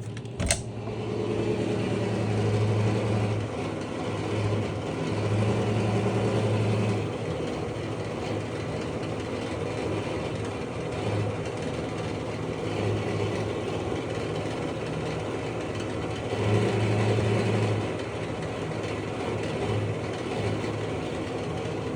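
Worn basement fan running with a loud, steady droning hum that swells louder for a second or two every few seconds. The noise is typical of a worn bearing and axle, and the owner expects it to get worse until the fan fails. There is a single click about half a second in.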